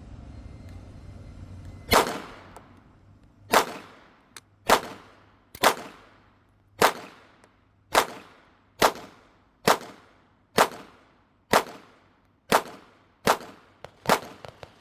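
A compensated Smith & Wesson M&P Shield Plus 9mm pistol firing a slow string of about thirteen shots, roughly one a second, beginning about two seconds in. It cycles mixed hollow-point ammunition without a malfunction.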